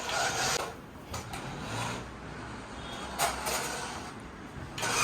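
Intermittent scraping, rustling and light knocks of objects being handled, with a louder patch a little after the middle and another near the end.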